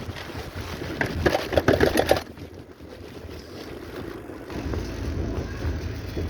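Wind rumbling on the microphone during a bicycle ride, with a loud, harsh, rasping noise about a second in that lasts about a second and cuts off.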